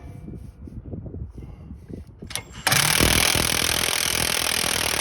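Irregular low knocking and rattling, then about 2.7 s in a power tool starts suddenly and runs loud and steady for about two and a half seconds. The tool is working a seized sway bar link nut loose.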